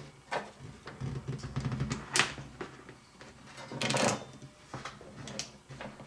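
Clicks and knocks of a hand crimping tool and wire being handled on a bench while a Powerpole contact is crimped onto a red wire: a few separate sharp clicks, the loudest about two seconds in and a quick cluster about four seconds in.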